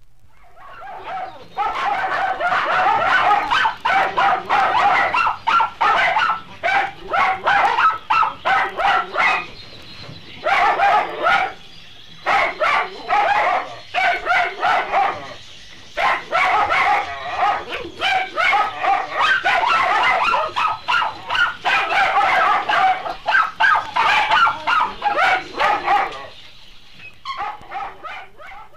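A group of puppies yipping and whimpering, many high-pitched calls overlapping in quick runs with a few short pauses, fading out near the end.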